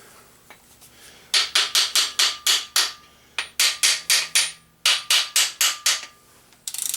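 Hammer tapping on metal engine parts in quick runs of sharp strikes, about four or five a second, with a short pause between runs and a faint metallic ring.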